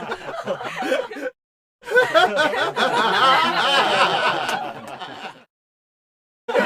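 Laughter sound effects played back to back: one laughing clip cuts off about a second in, a longer burst of laughing runs from about two seconds to five and a half, and another laugh starts suddenly near the end, with dead silence between clips.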